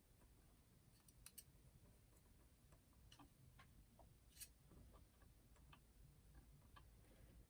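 Faint, scattered small clicks and taps of a boombox cassette deck mechanism being handled while a drive belt is worked back onto its pulley. The sharpest click comes about four and a half seconds in.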